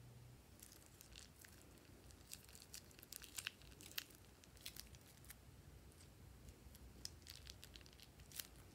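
Faint, irregular crinkles and sharp clicks of a thin plastic piping bag being squeezed in the hands as it is emptied.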